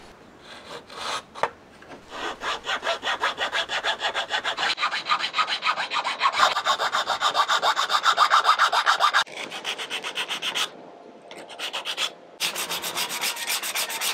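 Round file rasping band grooves into the tips of a natural wooden slingshot fork, in quick back-and-forth strokes about four a second. After a brief pause near the end, sandpaper rubs over the wood in fast strokes.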